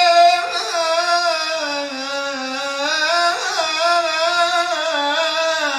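A singer holding one long wordless vowel in Arabic tarab style, ornamented with a gentle waver and sinking slightly in pitch near the end.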